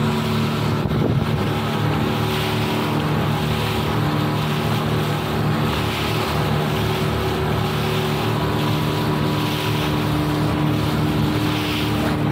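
Speedboat engine running at a steady pitch while under way, with wind and the rush of water along the hull.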